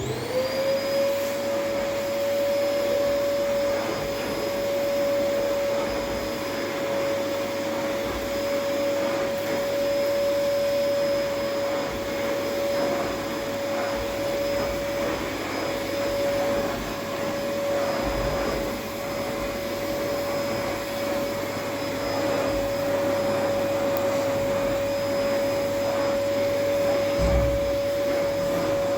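An electric motor switches on, whines up to speed within about a second, then runs steadily with a high whine over a rushing hiss.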